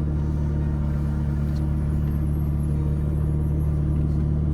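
McLaren 12C's twin-turbo V8 engine running with a steady, even low drone.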